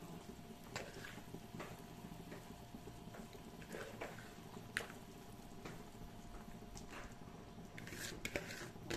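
Catfish soup bubbling at the boil in a wok, with scattered light clicks and plops that come more often near the end.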